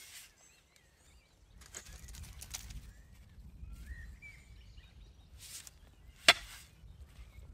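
A pickaxe breaking up clay, rocky ground: softer chops and scrapes of the blade in the soil about two seconds in, then one sharp, loud strike into the ground near the end.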